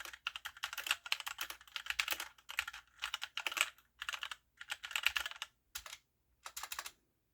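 Typing on a computer keyboard: quick runs of keystrokes for about five seconds, then a few scattered strokes that stop near the end.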